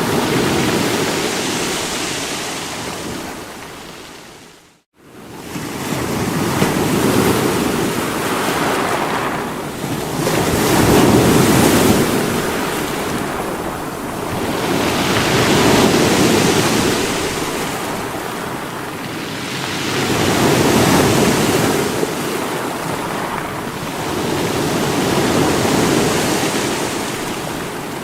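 Sea waves breaking against rocks, the surf swelling and ebbing about every four to five seconds. The sound fades out almost to silence about four to five seconds in and returns a moment later.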